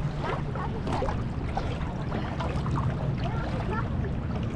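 Water sloshing and gurgling in a shallow lagoon, with a low steady hum underneath.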